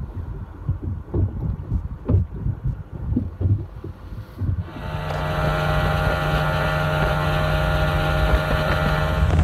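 Low, uneven thumps for the first few seconds, then, about halfway in, a Mercury OptiMax two-stroke outboard running steadily at cruising speed, the boat planing with wind and water rushing past.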